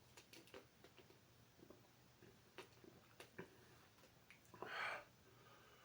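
Near silence: room tone with a few faint clicks and one short, soft hiss near the end.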